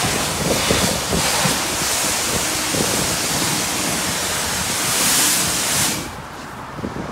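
High-pressure car-wash wand spraying water onto a car, a loud steady hiss that cuts off about six seconds in when the trigger is released.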